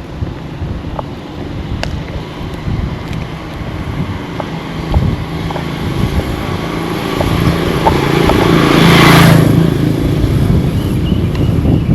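A motor vehicle passing close by, growing louder to a peak about nine seconds in and then fading, with wind buffeting the microphone throughout.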